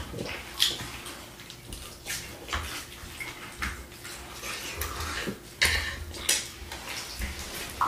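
Eating sounds: wet chewing and lip smacking on shrimp, fish and mashed potatoes, with irregular clicks of forks against plates.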